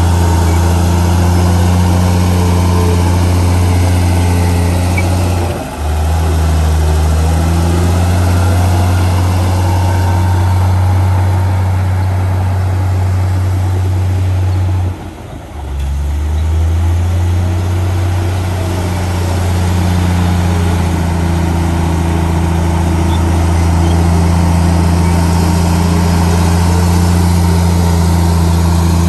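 Komatsu crawler bulldozer's diesel engine running steadily under load as the blade pushes soil, a loud low drone. It dips briefly twice, about six and fifteen seconds in, and comes back at a slightly changed pitch.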